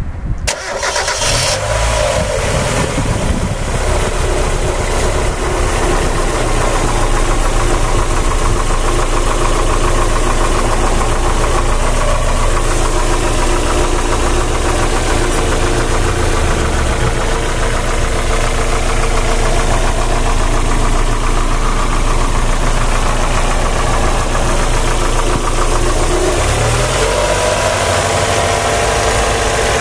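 1998 Mazda MX-5's 1.8-litre DOHC four-cylinder engine starting up and then idling steadily with a knock, whose cause the owner has not found. Engine speed briefly rises near the end.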